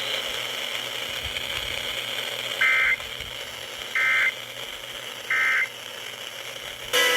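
Three short bursts of Emergency Alert System SAME data tones, each a fraction of a second and about a second and a half apart, over steady radio hiss: the End of Message signal that closes the broadcast severe thunderstorm warning. A louder noise starts suddenly just at the end.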